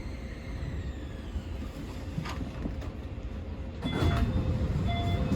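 Keio Liner electric train (Keio 5000 series) running on the line, heard from inside the car as a steady low rumble. A faint motor whine falls in pitch in the first second, and the running noise grows louder from about four seconds in.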